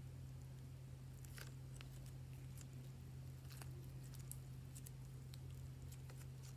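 Faint, scattered sticky clicks and squishes of slime being worked by hand, over a steady low hum.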